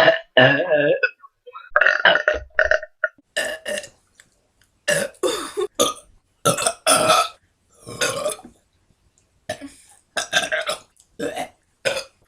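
A girl burping over and over, about ten loud burps in a row with short pauses between them.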